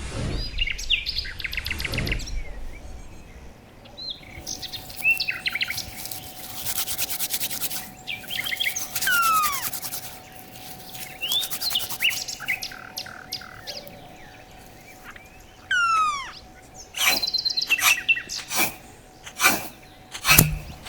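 Knife blade scraping a bamboo cane into fine shavings in short rasping strokes, several in quick succession near the end. Birds chirp and whistle throughout, including falling whistled notes.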